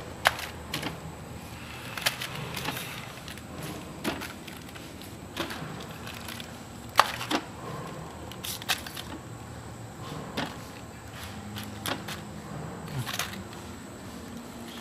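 Plastic sachets being handled and set down on a weighing scale: irregular sharp taps and light crinkles, two of them much louder, over a faint low hum.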